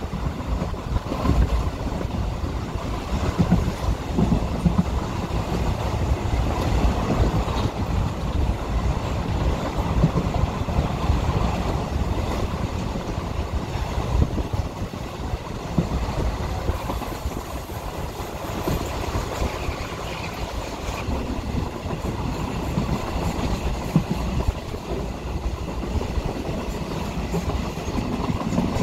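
A train running along the track, with a steady low rumble.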